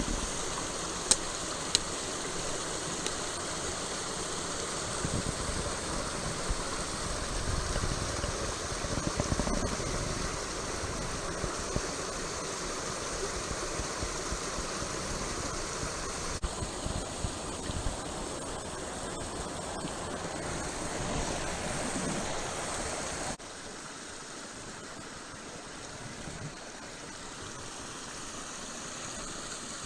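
Small mountain stream flowing and splashing steadily, with two sharp clicks about a second in. The water suddenly becomes quieter about three-quarters of the way through.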